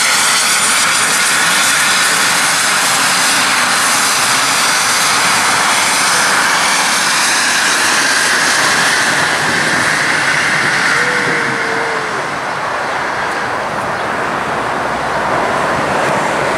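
Twin turbofan engines of a Cessna Citation Bravo business jet taxiing: a steady jet whine and hiss. The high whine fades after about ten seconds as the jet turns its tail toward the listener.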